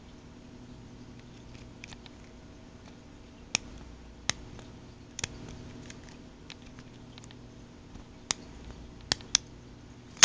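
A lock pick and tension wrench working inside a Brinks padlock: small, sharp metallic clicks and ticks come at irregular moments, several louder ones among fainter ones, as the pins are worked.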